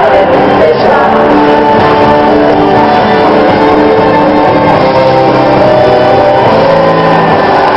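Live concert music: a band with guitar playing held notes and singing, heard in a large hall, in the closing bars of a song just before the crowd cheers.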